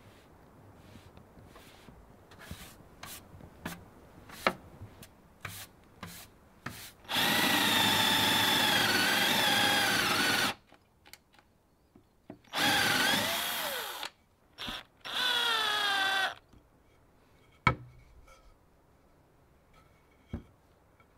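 Cordless drill boring holes through a wooden batten: three runs of the motor, the first about three seconds long, the later ones falling in pitch as they stop. Knocks from handling the wood come before the drilling and twice near the end.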